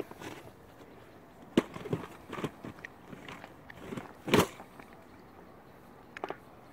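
Hands handling and paying out a cord from a coil: scattered light rustles and clicks, with two louder knocks, one about a second and a half in and the loudest about four and a half seconds in.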